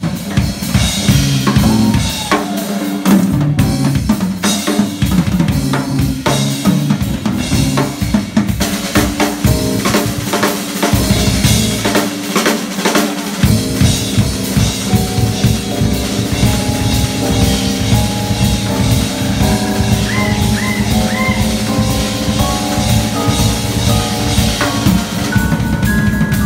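Live band music: a drum kit played busily, with snare and bass drum hits, over electric bass guitar lines. From about halfway, held keyboard notes come in above them.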